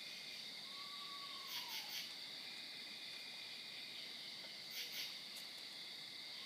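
Night insect chorus: a steady high trill with true katydids giving short pulsed calls twice. About a second in comes one faint, drawn-out call that falls in pitch, the kind of call a fox makes at night.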